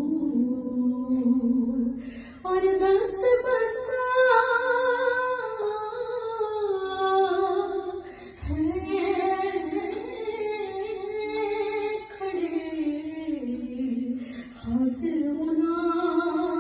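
A woman singing a slow devotional naat (salam) melody, drawing out long held notes that glide up and down, with a brief breath between phrases.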